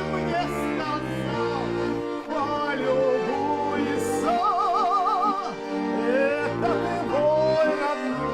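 A song performed with a melody line held in long notes with strong vibrato, over steady instrumental accompaniment.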